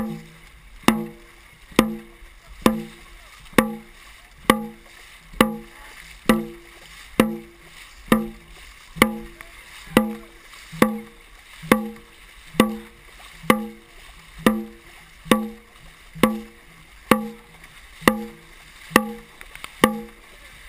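Dragon boat drum beaten in a steady rhythm, about one ringing beat every 0.9 seconds, setting the paddlers' stroke rate. Under the beats runs the rush and splash of water from the paddles and the moving hull.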